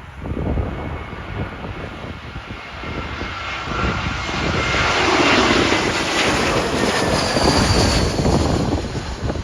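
Jet airliner on final approach passing low overhead: the engine noise builds from about three seconds in to a peak past the middle, with a faint whine that falls slightly in pitch. Gusts of wind buffet the microphone throughout.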